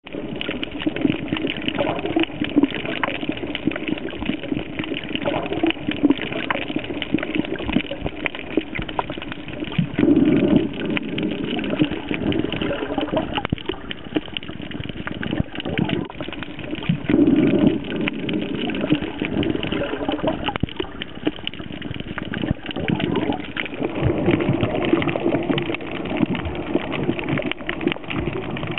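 Muffled water sloshing and gurgling around a snorkeler's camera, in uneven surges, with many small clicks and knocks.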